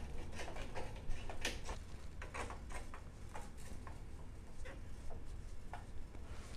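Irregular light scrapes and clicks of a metal scraper against the inside of an old brass bugle tube, as decades of corrosion are scraped out before soldering.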